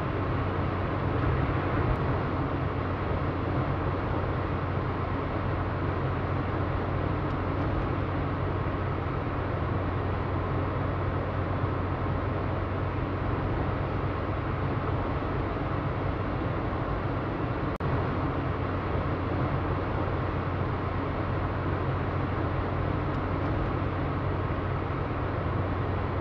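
Troy-Bilt Vortex snowthrower running steadily under load as its auger housing bites into a snow drift, the engine hum and the churning snow blending into one even noise.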